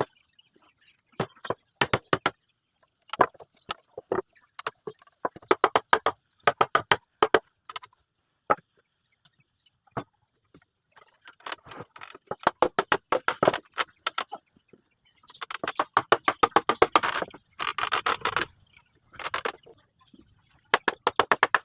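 Bursts of quick, sharp knocks on wood, several strikes a second in clusters with short pauses between, as a wooden door panel is fastened together. The longest, densest run of strikes comes about three quarters of the way through.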